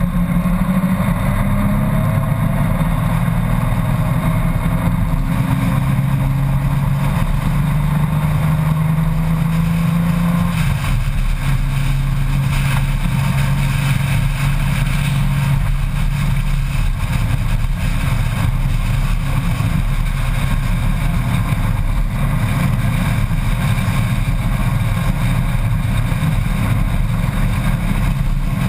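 Honda Gold Wing motorcycle engine running at cruising speed, with steady wind and road noise rushing past the camera on the moving bike. The engine note shifts a little a couple of times, about ten seconds in and again around sixteen seconds.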